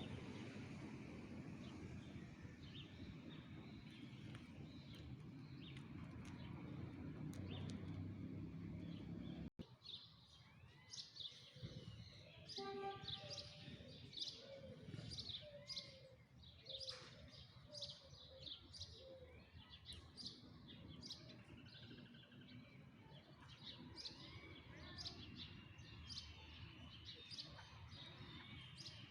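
Birds calling: many short, high chirps repeating over the last two thirds, with a short run of lower whistled notes near the middle. Before the chirps start, a steady low rumble of background noise that cuts off suddenly.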